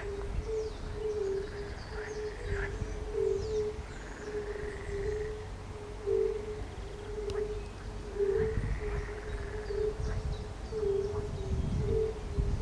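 A chorus of fire-bellied toads giving soft, repeated 'unk' calls, several animals overlapping at two slightly different pitches in a near-unbroken chain, with frogs croaking now and then.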